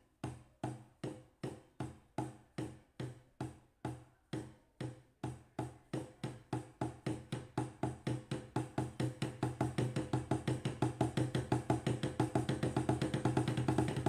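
Wooden drumsticks playing a double stroke roll (RR LL) on a rubber drum practice pad. The strokes start slow and evenly spaced and speed up steadily into a fast, dense roll.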